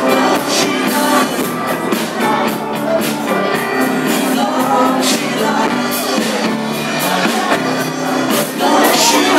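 Live band playing a pop-rock song with singing and drums.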